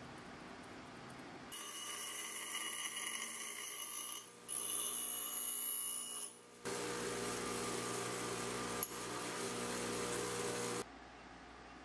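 Bench grinder grinding a W1 steel drill rod. The grinding comes in three stretches separated by two brief breaks, and the last stretch carries a steady motor hum. It starts about a second and a half in and stops suddenly near the end.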